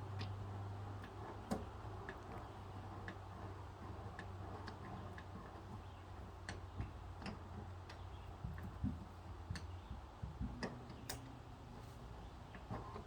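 Light, sharp clicks at uneven intervals, roughly one or two a second, from a glue-pull dent repair tool being worked on a panel, over a faint steady low hum.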